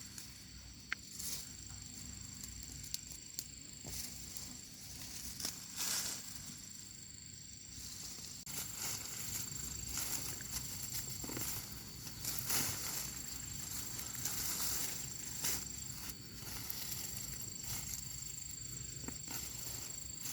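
Rustling and crackling of peanut plants and dry foliage being pulled and handled, in short repeated bursts, over a steady high-pitched insect drone.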